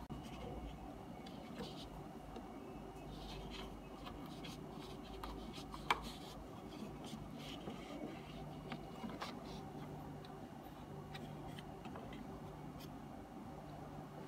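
Faint handling noises, small clicks and scrapes, as plastic tubing is fitted onto the analyzer's peristaltic pump, with one sharper click about six seconds in, over a low steady hum.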